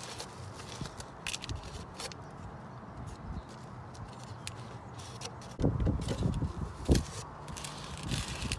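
Hands pressing and firming potting soil around a rosemary plant in a clear plastic water-jug planter: scattered scratchy rustles and small clicks of soil and plastic. A louder stretch of irregular bumps and rustling comes about five and a half to seven seconds in.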